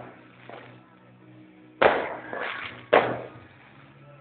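Fireworks exploding: two sharp bangs about a second apart, each trailing off in an echo, the first followed by a short crackle.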